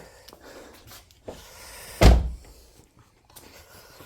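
A single heavy slam about two seconds in, with a few lighter clicks and knocks around it.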